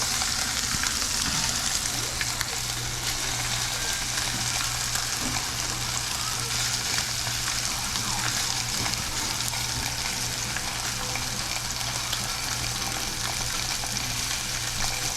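A tomahawk roast searing in a smoking-hot cast iron pan: fat and juices sizzling steadily. A low hum runs underneath.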